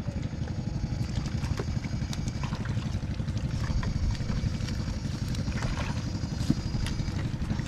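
A small engine running steadily with a fast, even pulse, and a faint high whine coming in about halfway through.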